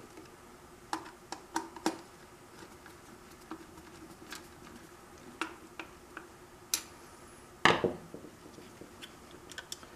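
Light metal clicks and taps of a Torx screwdriver driving small screws into a GM cruise control vacuum servo actuator and its metal bracket, with a louder knock about three-quarters of the way through.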